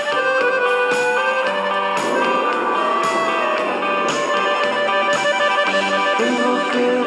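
Band music playing an instrumental passage with no singing: guitar carrying the melody over a steady accompaniment.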